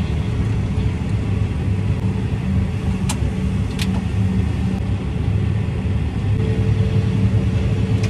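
Steady drone of a John Deere 8235R tractor's six-cylinder diesel engine heard inside its cab, with the combine running alongside as it unloads corn into the grain cart. Two brief clicks come about three and four seconds in, and a steady higher hum joins about two-thirds of the way through.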